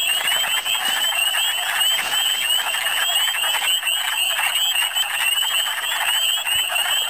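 Dense breeding chorus of wood frogs, many males giving short clucking calls that overlap into a constant din. A higher, rapidly repeating call runs steadily through it.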